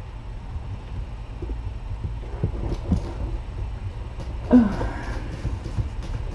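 Steady low background hum with faint scattered taps and rustles. A single short voice-like sound comes about four and a half seconds in.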